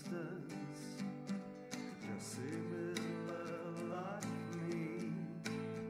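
Background music: a country-style song on strummed acoustic guitar, with a melody line that slides up and down in pitch.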